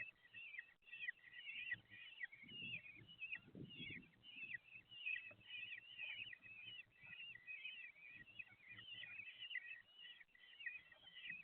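Common kestrel chicks begging: a rapid, continuous string of short, high chirps that slide downward, several a second. A soft, low rustling comes in about three to four seconds in.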